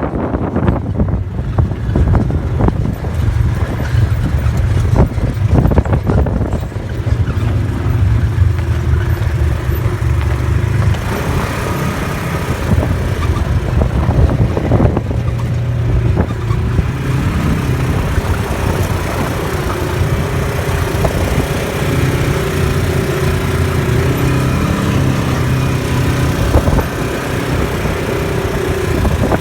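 A motor vehicle's engine running under a steady low rumble. Its pitch steps up and down from about eleven seconds in as the revs change.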